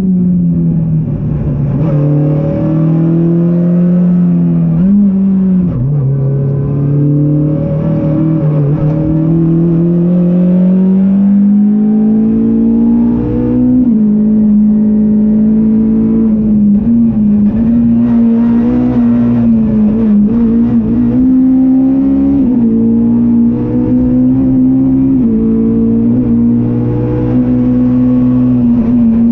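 Ford Fiesta R200 rally car engine pulling hard, heard inside the cockpit. Its pitch dips and climbs with the throttle, rising steadily through the middle, then holding high with brief dips near the end.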